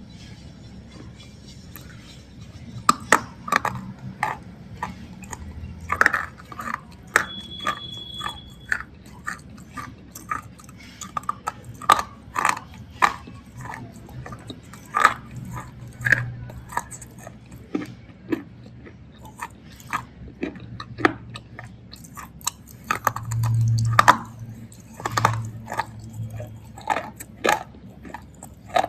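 A person biting and chewing a thick bar of black slate, close up: sharp, irregular crunches begin about three seconds in and keep coming, with duller chewing between them.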